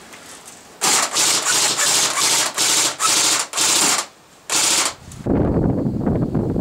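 Airsoft AK replica firing about eight short full-auto bursts of rapid clicking over some four seconds. Near the end a steady low rushing noise takes over.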